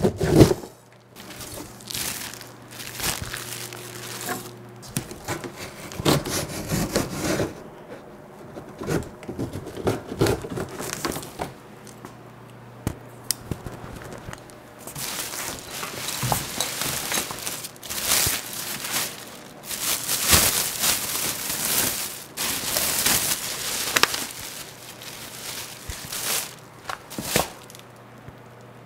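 Cardboard box and clear plastic wrapping being handled and pulled off a new gas pressure washer: irregular rustling, crinkling and scraping with scattered knocks, busiest in the middle stretch.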